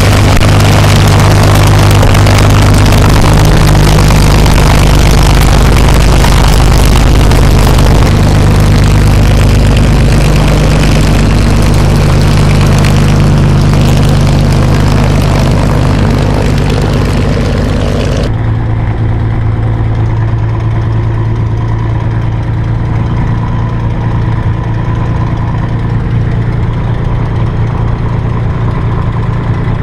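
P-51D Mustang's Packard Merlin V-12 engine running steadily, a loud deep drone. About eighteen seconds in, the hiss above it drops away suddenly, leaving the low engine note slightly quieter.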